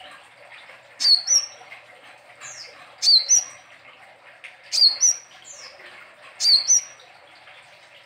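Male copper-throated sunbird (kolibri ninja, brown-breasted form) singing: four short, high, sweeping song phrases about every one and a half to two seconds, over a faint steady background hiss.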